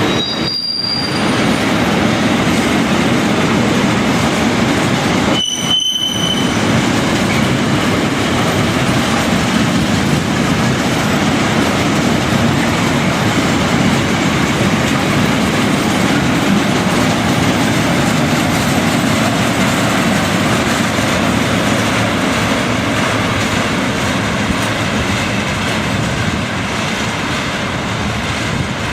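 Container freight train rolling past, a steady loud rumble and rush of steel wheels on the rails. Two brief high-pitched wheel squeals come about half a second and six seconds in.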